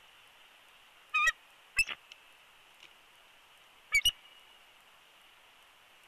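Bald eagle giving short, high-pitched chirping calls: two single calls about a second apart, then a quick pair near the four-second mark, over a steady faint hiss.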